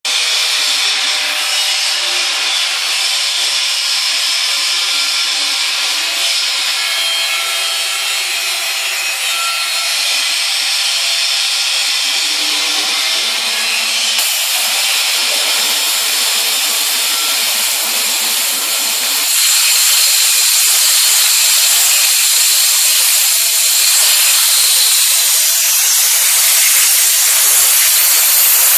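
Waterjet cutter running, cutting tyre rubber: a loud, steady hiss of the high-pressure jet and spray, growing louder about two-thirds of the way through.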